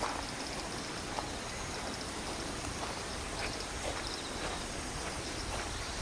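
Steady outdoor park background with faint high insect chirring and a few soft, scattered ticks.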